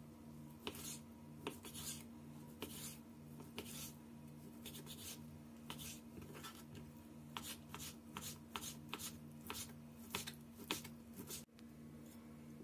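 Kitchen knife slicing raw chicken breast on a wooden cutting board: a string of short cutting strokes, about one or two a second at first and quicker after the middle, ending abruptly near the end. A steady low hum with a pulsing tone runs underneath.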